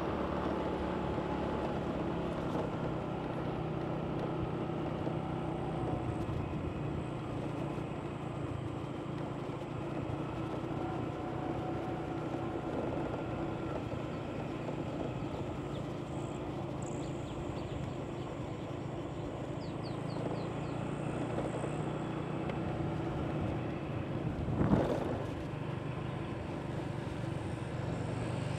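Motorbike engine running steadily while riding, with road and wind noise; a brief loud knock about 24 seconds in.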